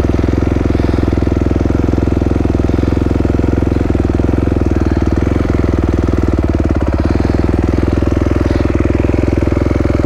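Dirt bike engine idling steadily.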